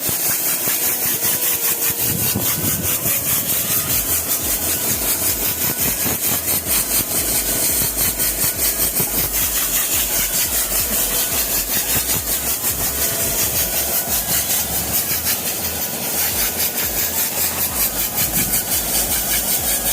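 An engine running steadily with a fast, even pulsing and a strong low hum.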